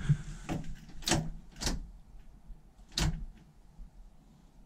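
A handful of sharp clicks and knocks as the ignition and controls by the steering column of a 1997 Rover Mini Cooper MPI are worked, with no whir of the electric fuel pump priming. The pump is not running, which later turns out to be a lost earth.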